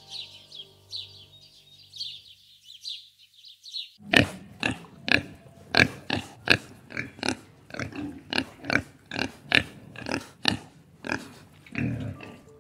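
Domestic pigs grunting over and over while feeding, short loud grunts about two a second. Before them, for the first four seconds, a small bird chirps rapidly over soft music.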